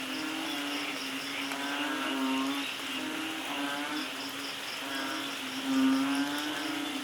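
Nature ambience of light rain and calling animals: a steady hiss, repeated pitched calls every second or two, and a fast high chirping pulse. The sound swells louder about six seconds in.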